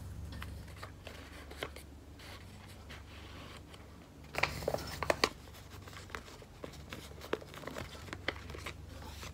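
Paper being handled: light rustling as a paper bag is held open and a small paper item slipped in, then the bag's top folded over. A cluster of crisp paper crackles comes about four and a half seconds in, over a low steady hum.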